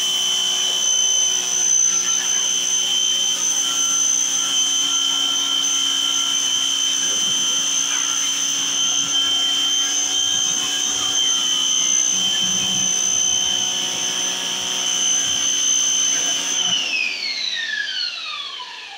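Electric pressure washer running with a steady high whine while spraying, then its motor winding down in a falling whine near the end.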